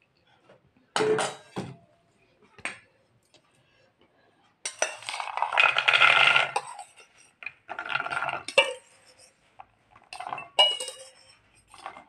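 Stainless steel bowls and a metal spoon clattering as raw green chickpeas are scraped and tipped from one bowl into another. A sharp clatter about a second in, a longer rattle of chickpeas sliding into the steel bowl about five seconds in, then scattered clinks of spoon on bowl.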